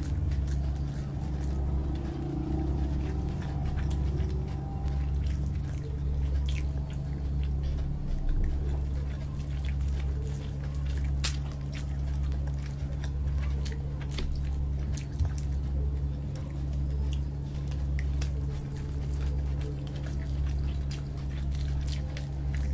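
Close-miked eating sounds: chewing of noodles and paratha dipped in pea curry, with many short wet mouth clicks and smacks, over a steady low hum that swells and fades at a regular pace.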